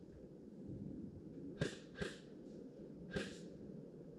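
Three short, sharp cracks over a low background hiss: two about half a second apart, then a third about a second later.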